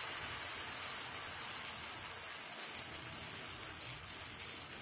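Pancake batter sizzling in hot butter on a non-stick tawa: a steady, even hiss.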